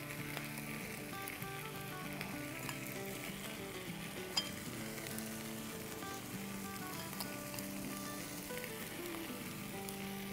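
Tortilla-wrapped fajita rolls frying in oil in a nonstick pan, a steady low sizzle, with one brief click about four seconds in. Soft background music plays underneath.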